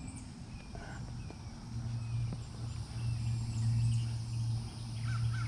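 Birds chirping in short repeated calls over a steady low hum that comes in and swells about two seconds in.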